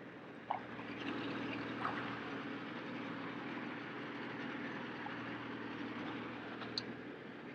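Motorboat engine running steadily with water splashing and churning at the hull, with a few brief knocks.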